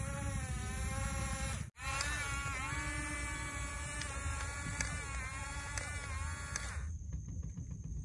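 Electric drive motors and gearboxes of a Huina 1569 RC bulldozer whining, the pitch rising and falling with the throttle as it pushes and backs through sand, over a steady low rumble. The sound cuts out for an instant a little under two seconds in.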